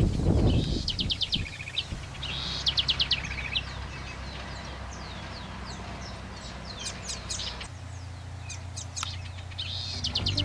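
A small songbird singing: two quick trilled phrases of rapidly repeated falling notes in the first few seconds, then scattered short chirps, over a faint low hum.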